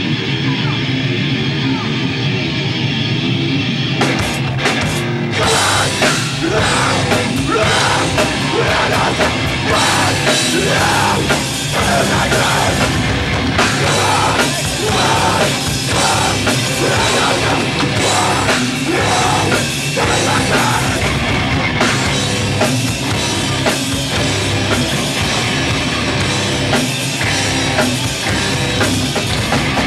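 Hardcore punk band playing live, loud. Distorted electric guitar plays alone at first, then the full drum kit with cymbals comes in about four seconds in and the band plays on together.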